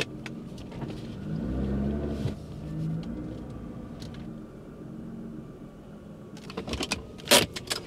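Nissan GT-R's twin-turbo V6 running at low speed in reverse, heard from inside the cabin, with a brief rise in engine speed a second or two in. A few clicks and a sharp knock near the end.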